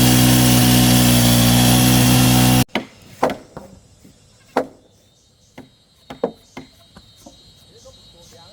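Power tool running steadily at full speed on wood, cutting off abruptly about a quarter of the way in. It is followed by scattered sharp wooden knocks and taps, several seconds apart to a few per second.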